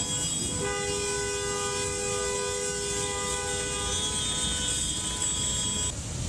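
Car horns held down in gridlocked traffic: two horn tones sound together as one long blast from just under a second in for about three seconds, with another steady horn tone lasting until near the end, over a constant traffic rumble.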